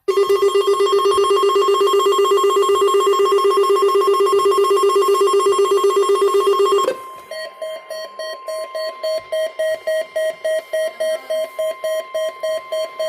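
Weather radio alert tones for a Required Weekly Test. A loud, rapidly warbling two-tone alarm sounds for about seven seconds, then gives way to a steady tone with short beeps pulsing about three times a second.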